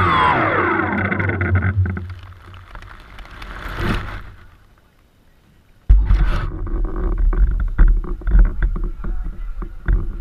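DJI Phantom quadcopter's motors and propellers whining, dropping in pitch as they spin down and dying away about two seconds in. From about six seconds in, loud low rumbling and knocking from handling on the drone's camera microphone.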